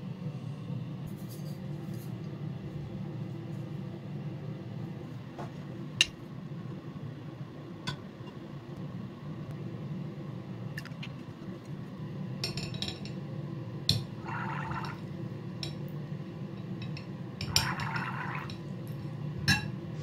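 A PT-1 primus stove's fuel tank and a metal rod clinking against a glass bowl of water a few times, with two short stretches of water sloshing as the tank is moved, over a steady low hum.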